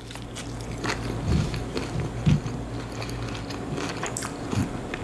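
A person chewing a mouthful of food close to the microphone, with soft mouth clicks and a couple of louder low thumps, over a faint steady low hum.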